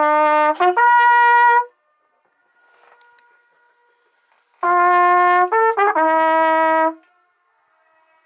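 Trumpet playing two short phrases of a few held notes, each answered a moment later by its faint echo coming back across the lake.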